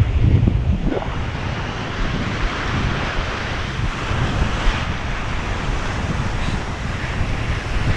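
Ocean surf breaking on the beach, with wind buffeting the microphone in a steady low rumble.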